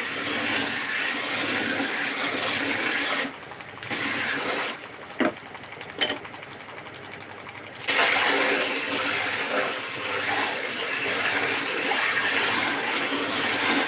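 Bench belt sander grinding old lacquer off a wooden strip held against the running belt, a steady rushing scrape over a faint motor hum. The sanding noise drops off briefly about three seconds in and again for about three seconds from about five seconds in, with two sharp knocks in that quieter stretch, then returns at full strength.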